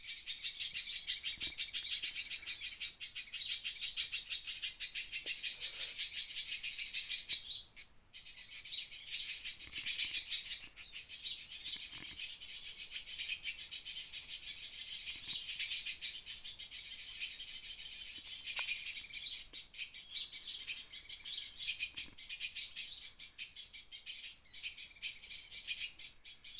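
Birds chirping and twittering without a break: fast, high-pitched repeated notes, dipping briefly about eight seconds in.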